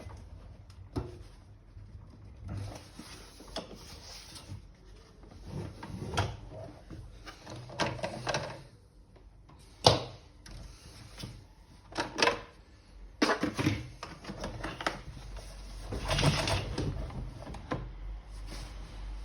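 Plastic parts of a Siemens vacuum cleaner's housing being handled and pressed together, with irregular clicks, knocks and rustling; one sharp snap about ten seconds in is the loudest.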